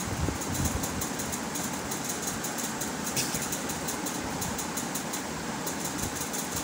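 Pencil scratching on paper in short, irregular strokes, over a steady background hum.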